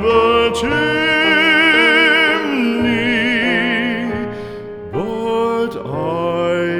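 Slow ballad sung by a solo voice over a quiet accompaniment, the singer holding a long note with wide vibrato. A new phrase begins about five seconds in.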